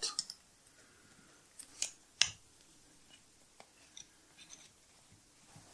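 A few light metallic clicks and taps as a hex key and the steel Schaublin 102 compound slide are handled, the loudest about two seconds in, with fainter ticks later.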